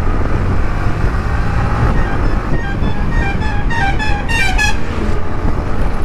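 Yamaha MT-15's 155 cc single-cylinder engine running at road speed, with wind on the microphone. About two and a half seconds in, a vehicle's musical horn sounds a quick run of short notes stepping up and down in pitch for about two seconds.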